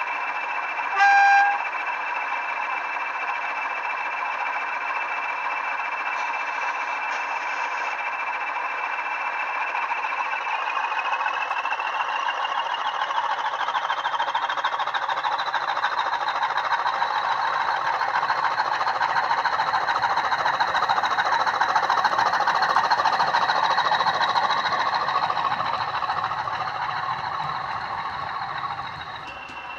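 Model Class 20 diesel sound played by a DCC sound decoder through a small slim speaker. The engine idles with a steady whine, and a short horn blast sounds about a second in. From about ten seconds in the engine revs up, its whine rising in pitch and growing louder as the pair of locomotives pulls away, then fades near the end.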